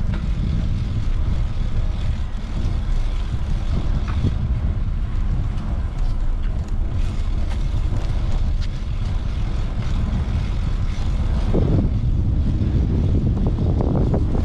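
Steady low wind rumble buffeting the microphone while riding a bicycle, with a faint even hiss above it.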